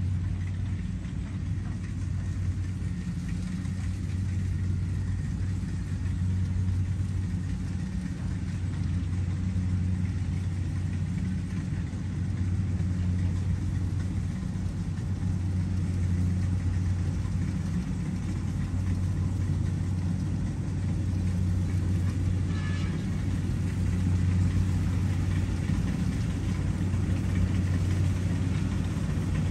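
Kubota combine harvester's diesel engine running steadily under load while cutting rice, a continuous low drone that grows slightly louder toward the end.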